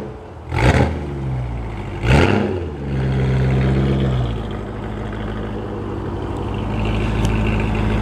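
BMW E92 M3's S65 V8 with a cat-less Valvetronic Designs mid-pipe and Borla ATAK axle-back exhaust, driving off slowly. It gives two sharp revving bursts in the first couple of seconds, then a steady low exhaust drone with a clear pitch, which drops to a lower rumble about halfway through.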